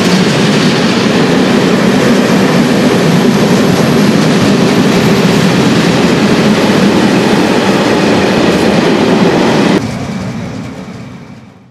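Wagons of a mixed freight train passing close by at speed, with a loud steady rolling rumble of wheels on rails. About ten seconds in the last wagon clears and the noise drops sharply, then fades away.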